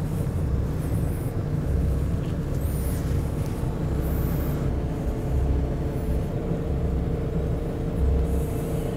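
Fishing boat's engine idling: a steady low rumble with a constant hum over it.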